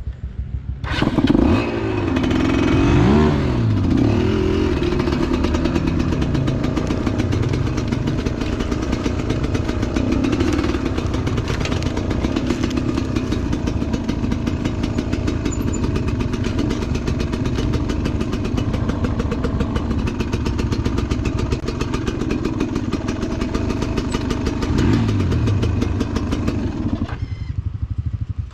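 Enduro motorcycle engine running close by, revving up and down a couple of seconds in and again near the end, then dropping away shortly before the end.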